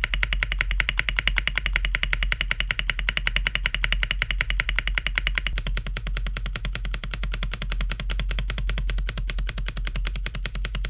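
Fast typing on a mechanical keyboard fitted with MX-style keycaps: a dense, even stream of key clacks. The tone of the clacks changes about halfway through.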